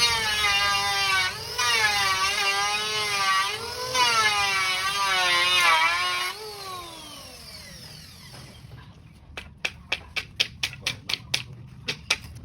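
A small power tool's motor whines with a wavering pitch as its load changes, dipping twice. About six seconds in it is switched off and winds down. Near the end comes a quick run of sharp taps.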